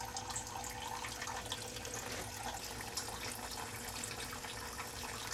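Water running steadily from a curved fill tube into the shallow tray of a hydroponic ebb-and-flow flood table, splashing and trickling as the table floods.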